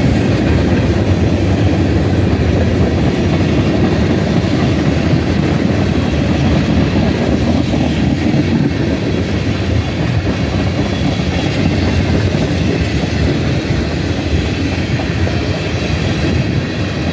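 Freight train's tank cars and covered hopper cars rolling past at trackside: a steady noise of steel wheels on the rails, easing slightly near the end as the last cars go by.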